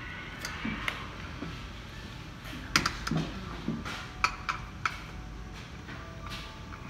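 Western lowland gorillas stripping and chewing leafy branches: a scatter of sharp snaps and leaf rustles, thickest in the middle, over a steady low room hum.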